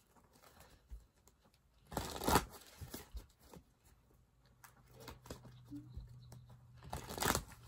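A deck of oracle cards being shuffled by hand: soft card slides and clicks, with two short louder bursts of shuffling, about two seconds in and again near the end.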